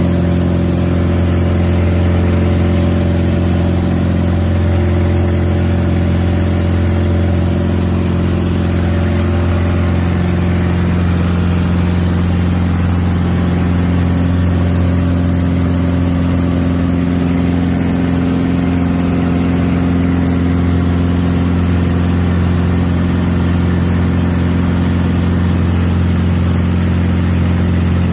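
Single-engine light aircraft's piston engine and propeller running at climb power, heard inside the cockpit as a loud, steady drone.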